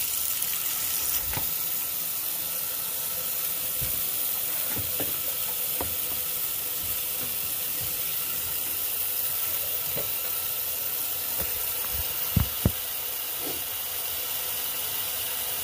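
Tap water running steadily into a bathroom sink, filling the basin. Two short knocks about twelve seconds in.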